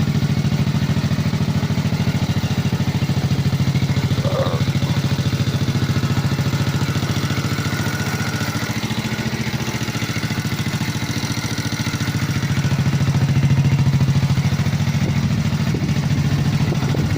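Small ATV engine idling steadily on a freshly cleaned carburetor. It picks up slightly for a moment near the end.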